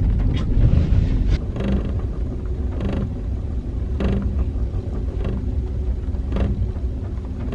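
Moving gondola cabin: a steady low rumble with soft knocks about every second.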